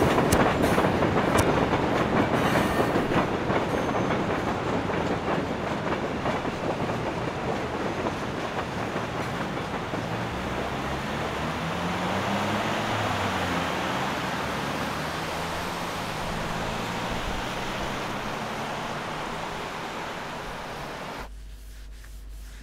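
A train passing: a loud rush of noise starts suddenly and slowly dies away over about twenty seconds, with low tones sliding up and down in its second half. It cuts off abruptly near the end.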